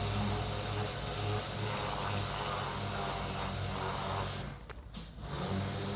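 Kärcher pressure washer spraying water, a steady hiss over the hum of its pump motor. About four and a half seconds in the spray stops, one short burst follows, and the motor hum runs on.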